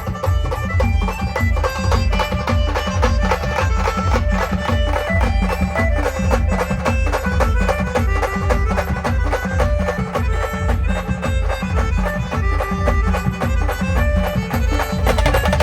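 A band playing an instrumental dance tune. A wind-instrument melody of held notes runs over a steady, dense drum beat with heavy bass.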